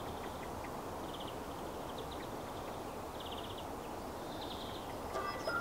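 Outdoor park ambience: a steady low hush with a bird calling in short rattling trills, about one every second. Music with plucked strings begins near the end.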